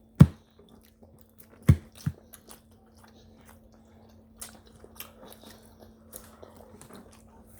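Close-miked eating sounds of spaghetti and meatballs being chewed: wet chewing and smacking, with a few sharp clicks in the first two seconds, then quieter irregular chewing over a faint steady hum.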